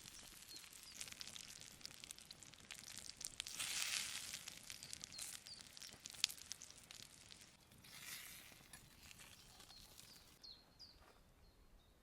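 T-bone steak sizzling on a hot stone: a faint crackling hiss with scattered pops, swelling about four seconds in and again about eight seconds in, with one sharp click a little after six seconds. A bird chirps several times.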